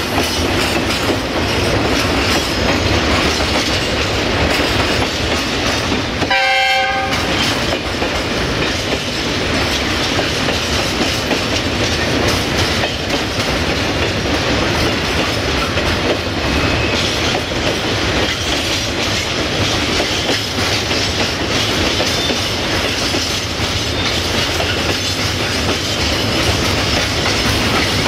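Freight train of tank wagons rolling past behind a 060-DA diesel-electric locomotive, its wheels clattering steadily over the rail joints. A short horn blast sounds about six seconds in.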